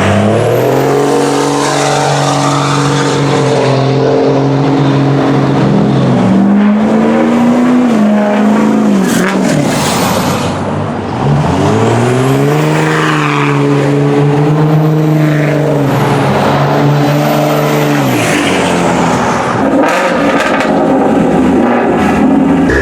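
A car engine is revved and held at high revs for several seconds, climbs briefly and then falls away. It is revved up again and held, with a slight waver, before dropping back. Near the end there is a run of short, sharp pops.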